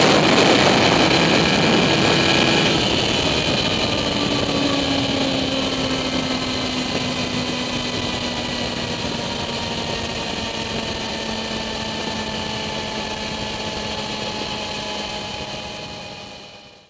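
Kawasaki ZX-10R's inline-four engine running at motorway speed with heavy wind rush on the bike-mounted microphone, loudest in the first seconds. The engine note falls slowly as the bike eases off, and the sound fades out near the end.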